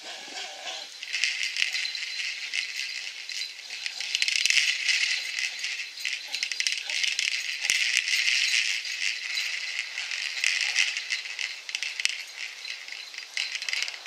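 Continuous irregular rattling and rustling as a dog leaps at and tugs on a ball hung from a tree branch, with a couple of faint thuds.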